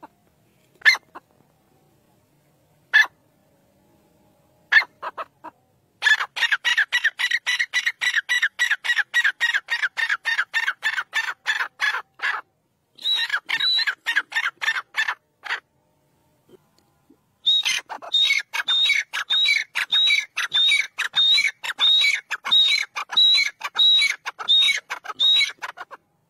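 Grey francolin calling: a few separate notes, then three long runs of rapid, loud, repeated calls, the last run carrying a ringing high note about twice a second.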